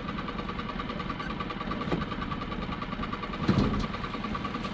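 A small boat's motor running steadily, with an even rhythmic ticking, as a lobster pot is hauled up. About three and a half seconds in there is a brief louder burst of noise as the pot comes up to the side of the boat.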